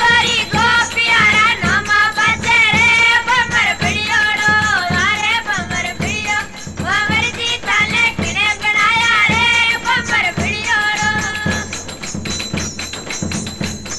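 Rajasthani Fagan folk song: a high-pitched voice sings a winding melody over a steady drum beat. The singing stops near the end, leaving the drum pattern playing on.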